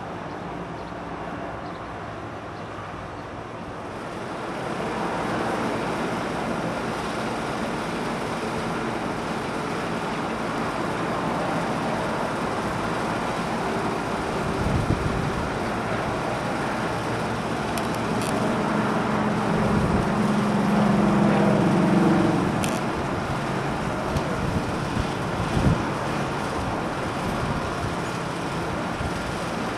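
Sandstorm wind blowing steadily, with a low engine-like hum that swells about two-thirds of the way through, and a few low thumps of gusts on the microphone.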